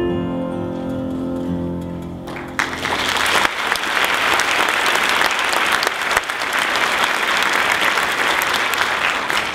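The last held notes of the dance music fade away over the first couple of seconds. Then an audience applauds steadily for the rest of the time.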